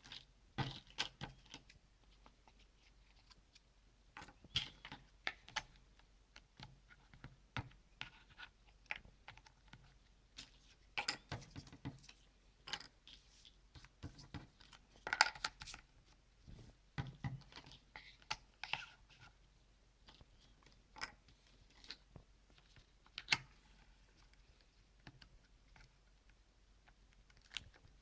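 Cardboard jigsaw puzzle pieces being handled, set down and pressed into place: light, irregular clicks, taps and scrapes, some in quick clusters.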